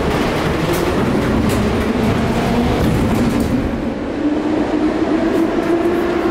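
Moscow Metro car at a station platform: steady rumble and hum of the train heard from inside the carriage, with the higher hiss easing off about four seconds in.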